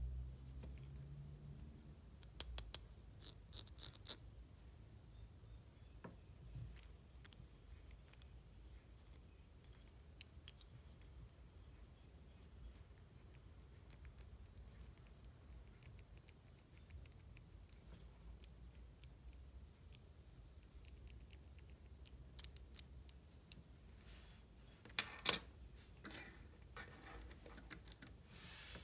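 Quiet handling of packaging and small objects: scattered light clicks and short scratchy rustles, with a louder cluster of scratching and clicks about 25 seconds in.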